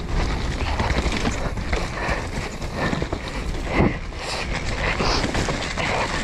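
Mountain bike riding over a bumpy dirt trail: tyres on the ground and the bike clattering in many short knocks over the bumps, over a steady low rumble.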